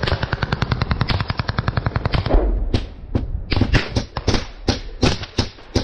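Assault rifle fired at close range: a long, rapid automatic burst of about two seconds, a low thud just after it, then single shots and short bursts.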